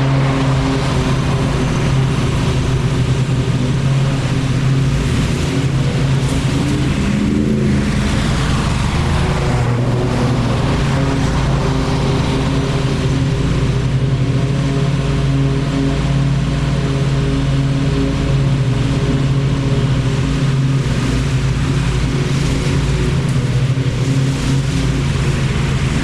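Lawn mower engine running steadily, a continuous drone with a brief shift in pitch about seven to eight seconds in.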